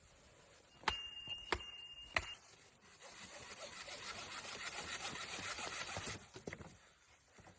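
Three sharp clicks, then about three seconds of steady scraping noise that stops suddenly.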